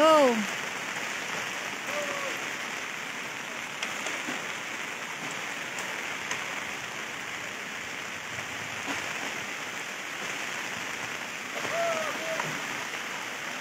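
Steady rain falling, an even hiss all through. A few short vocal calls fall in pitch, the loudest right at the start and another near the end.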